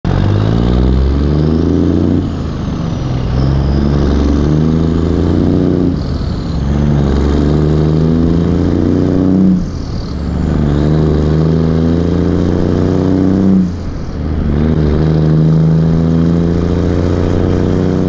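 Heavy truck's diesel engine pulling hard up through the gears: its pitch climbs in each gear and drops back at four gear shifts, about every four seconds.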